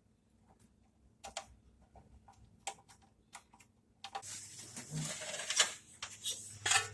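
Scattered metal clicks and clinks of hand tools and bolts while the cylinder head of a 1934 Chevrolet stovebolt six is bolted back on, followed about four seconds in by a busier stretch of handling noise with a low hum and a few sharp clanks.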